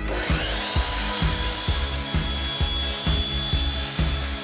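DeWalt miter saw motor spinning up with a rising whine, then running at a steady high whine as the blade cuts through PVC pipe. Background music with a steady beat plays underneath.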